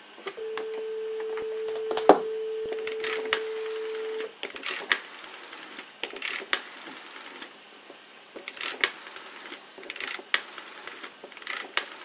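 Rotary dial telephone: a steady dial tone in the handset for about four seconds, with a sharp knock about two seconds in. The tone then stops and the finger dial is wound round and let spin back again and again, its return ticking out each digit of a code of sevens and fives.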